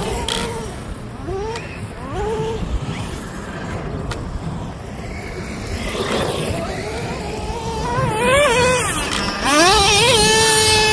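Small nitro engine of a Traxxas Slayer RC truck revving up and down with a high, buzzing note. A couple of faint short revs come early on, then louder rising and falling revs from about three-quarters of the way in, held high near the end.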